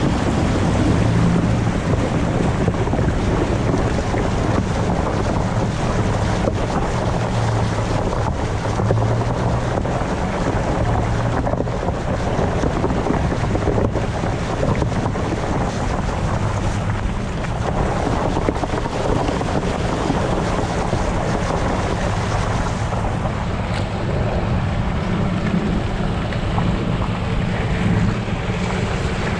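Ford F-150 pickup driving through standing floodwater, its tyres splashing and throwing spray over a low steady engine hum, with wind buffeting the side-mounted microphone. The splashing hiss eases near the end as the truck reaches a muddy track.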